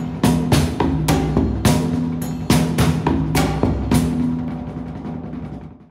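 Outro music: heavy drum strikes over a low held drone, fading down and ending just before the end.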